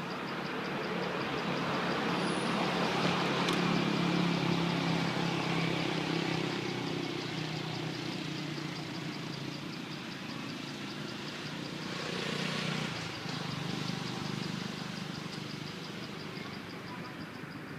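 Forest ambience: an insect chirring in fast, even pulses, over a low droning hum that swells a couple of seconds in and again about twelve seconds in.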